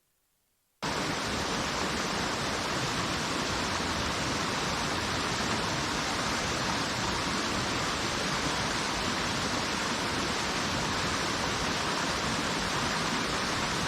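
Steady rushing water noise, even and unbroken, starting abruptly about a second in.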